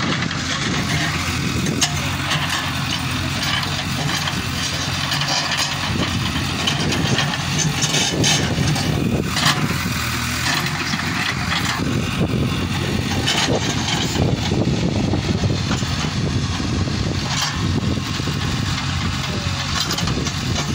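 JCB 3CX backhoe loader's diesel engine running steadily while the backhoe arm digs, with a few knocks and scrapes of the bucket on stony ground.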